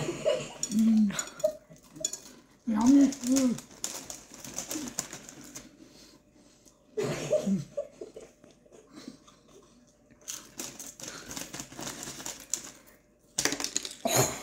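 Potato chips being bitten and crunched, with a few muffled wordless voice sounds in between.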